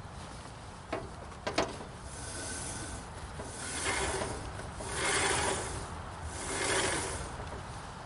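Three rough scraping strokes, each about a second long, from a hand tool worked against the bandsaw mill's band wheel, with two sharp clicks about a second in.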